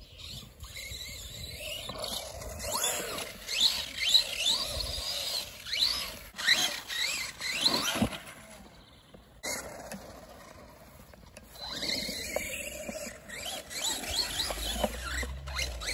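Electric motor and drivetrain of an Arrma 1/10 RC monster truck whining, rising in pitch over and over as the throttle is punched. The sound dips for a few seconds in the middle, then the bursts resume.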